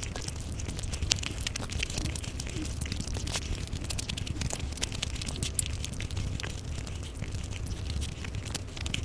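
Close-miked chewing and wet mouth sounds of a person eating a mouthful of chicken curry and rice by hand: a dense run of small wet clicks and smacks over a low steady rumble.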